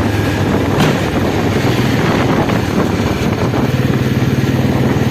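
2008 Royal Enfield Bullet's single-cylinder engine running steadily, its exhaust pulsing in a fast, even beat.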